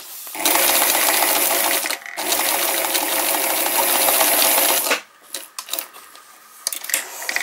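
Electric sewing machine running a zigzag stitch through paper, with the rapid rattle of the needle in three runs: a brief one at the start, one of about a second and a half, then a longer one of nearly three seconds that stops about five seconds in. After that only a few faint clicks and rustles of the paper being handled.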